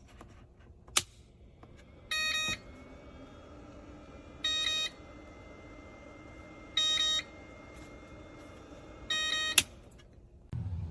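An electronic beeper gives four short, identical beeps about two and a half seconds apart. A sharp click comes about a second in and another at the end of the last beep.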